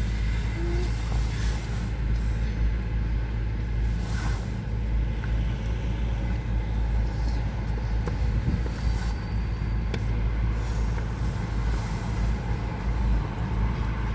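Train running through the station: a steady, loud low rumble that holds even throughout.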